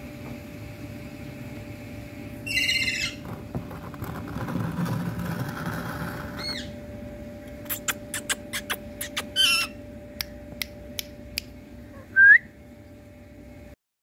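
Rose-ringed parakeets calling: a harsh screech a couple of seconds in, two shorter calls later, and a short rising whistle near the end, the loudest sound. Between the calls comes a quick run of sharp clicks, and the sound cuts off suddenly just before the end.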